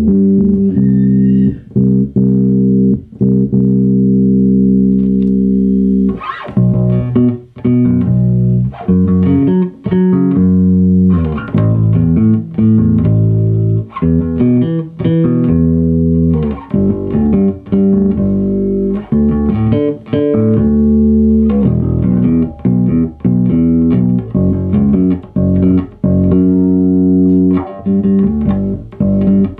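A 1979 Fender Precision Bass played: one note held for about six seconds, then a busy line of short plucked notes.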